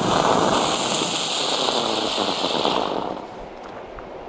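A small ground fountain firework spraying sparks with a steady hiss that starts suddenly and dies out about three seconds in.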